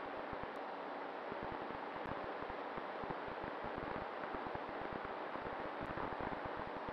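Wind rushing over the microphone of an RC plane's onboard camera in flight: a steady hiss with rapid low buffeting.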